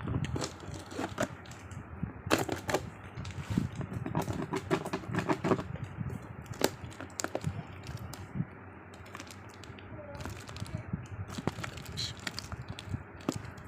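Plastic parcel packaging crinkling and crackling as it is handled and opened, with irregular sharp clicks and rustles.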